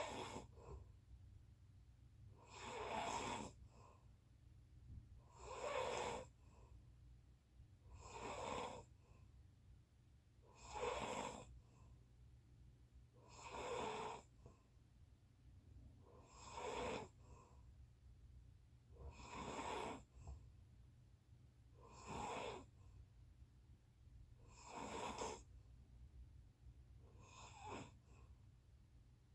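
A person snoring in a steady rhythm, about eleven snores, one every two and three-quarter seconds, each lasting under a second.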